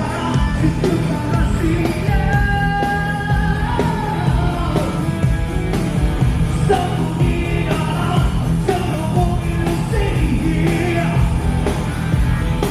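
Rock band playing live, with a singer holding long notes that bend in pitch over a steady, full band.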